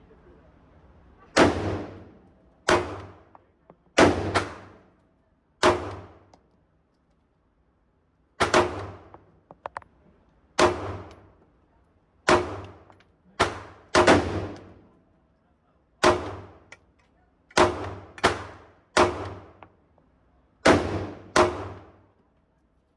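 Sig Sauer P226 Elite Scorpion pistol fired one shot at a time at an unhurried, uneven pace, about fourteen shots in all. Each is a sharp crack with a ringing tail that dies away in about a second. There is a short pause after the fourth shot.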